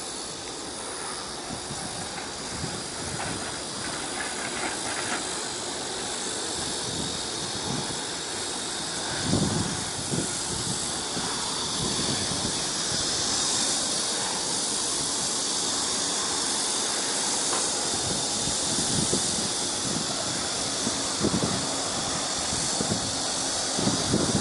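A steady high hiss over a low rumble, with a few dull thumps about ten seconds in and near the end.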